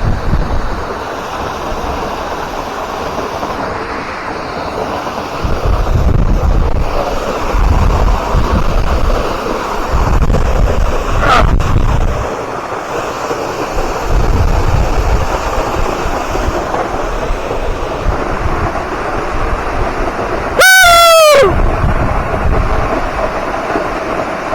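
Steady rush of a creek or waterfall, with wind buffeting the microphone in gusts. About twenty seconds in there is one brief, loud, high-pitched cry that falls in pitch.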